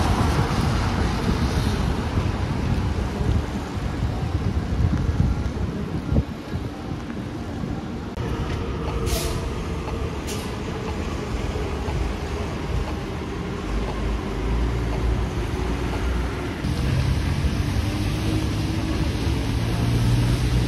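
City street traffic on wet pavement: passing vehicles with a constant low rumble and tyre noise. Two short hisses come about nine and ten seconds in, and a steady low engine drone sets in over the last several seconds.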